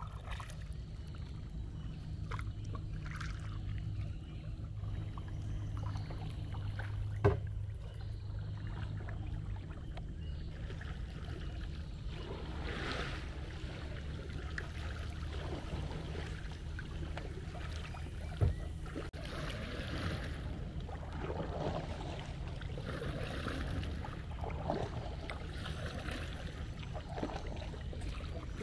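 Kayak being paddled on calm water: paddle blades dipping and splashing over a steady low rumble, with two sharp knocks about seven and eighteen seconds in.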